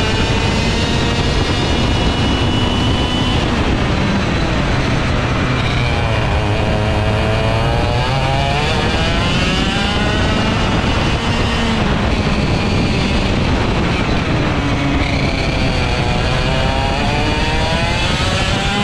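Vortex ROK GP 125cc two-stroke kart engine racing at high revs. Its pitch drops and climbs again twice as it comes off the throttle for corners and accelerates out.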